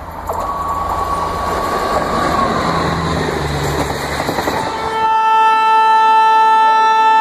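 An electric-locomotive express train passes at speed, its wheels rumbling while the horn sounds one long steady note that dips slightly in pitch as it goes by. About five seconds in the train sound stops and a held electronic chime note begins, the start of an Indian Railways station announcement jingle.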